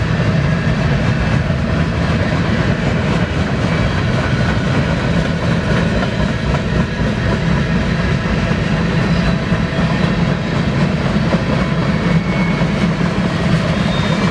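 BNSF freight train running on the track nearby: a steady, loud rumble of the train rolling past.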